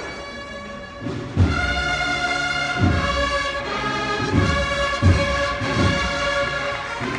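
Brass band with deep drum strokes striking up a slow processional march about a second in, held brass chords over an uneven drum beat.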